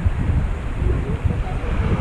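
Wind buffeting an action camera's microphone in uneven low gusts, over the steady rush of a shallow, rocky river's rapids.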